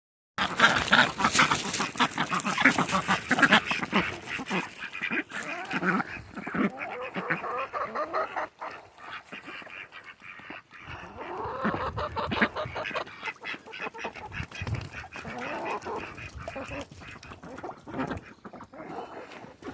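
A small flock of domestic ducks quacking and honking repeatedly and noisily, in clustered bouts, with many short clicks and rustles mixed in.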